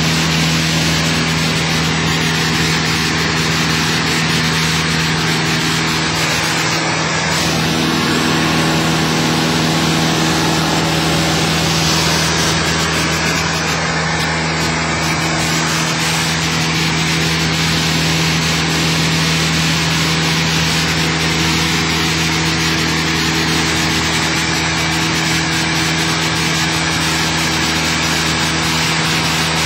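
Cessna 172's single piston engine and propeller droning steadily in flight, heard from inside the cabin, with rushing airflow noise over it.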